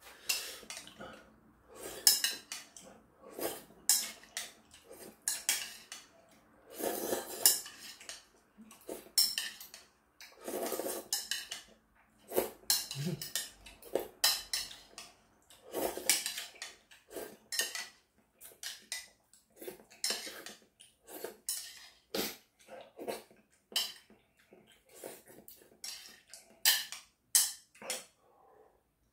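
Slurping kalguksu noodles and broth from a ceramic bowl in repeated short bursts, with metal utensils now and then clinking against the bowl.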